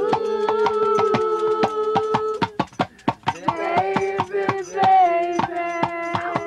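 A voice singing long held notes, each sustained for a few seconds with a slight slide at its ends, over a fast, even clicking beat of about five clicks a second.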